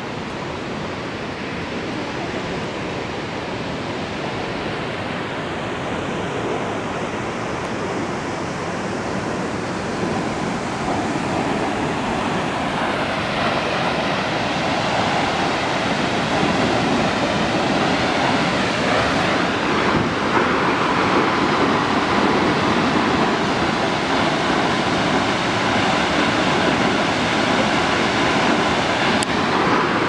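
Steady rush of falling water from Feather Falls, a tall waterfall plunging down a granite cliff, growing gradually louder.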